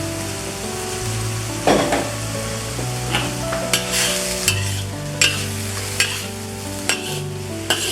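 Chicken stir-frying in a hot wok: oil sizzling steadily while a spatula scrapes and knocks against the wok about once a second.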